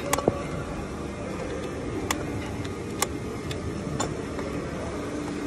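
A few light, sharp metallic clicks about a second apart, from copper exhaust nuts and the manifold studs being handled and refitted by hand. They sit over a steady background noise.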